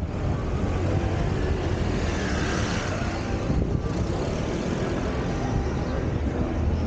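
Car driving slowly through city traffic: a steady rumble of engine, tyre and street noise.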